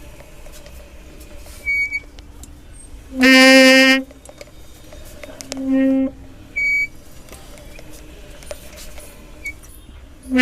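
Royal Enfield Classic 350 Reborn's rear disc brake squealing as the bike is rocked back and forth with the brake applied: two loud, horn-like squeals with a steady low pitch, about three and six seconds in, and a couple of short high squeaks. This is the recurring brake noise that four sets of replacement rear pads have not cured.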